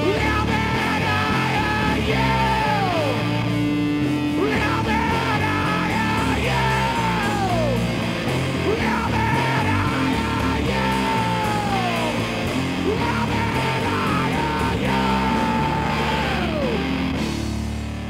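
Live hard rock band playing: distorted electric guitar, bass and drums, with a singer yelling over them. Held high notes slide down at the end of each phrase, about every four to five seconds.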